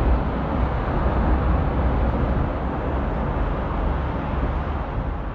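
Steady road traffic noise: vehicles running close by on a city street, with a deep, constant rumble.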